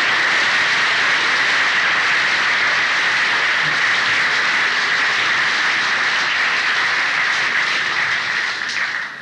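Concert hall audience applauding, a dense, steady crackle of many hands that dies away near the end, heard on an old cassette recording.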